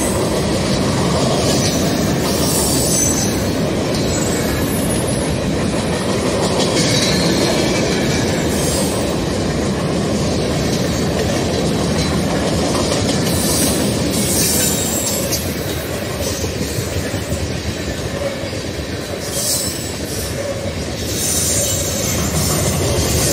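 Freight train boxcars rolling past close by: a steady rumble of steel wheels on rail, with intermittent high-pitched wheel squeal that comes and goes every few seconds.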